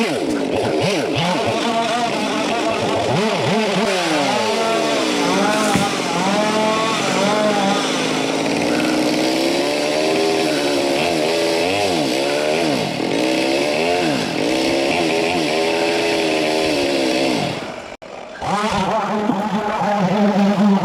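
Chainsaw cutting into a melaleuca trunk, its engine revving up and down again and again. About eighteen seconds in it drops away for a moment, then runs on.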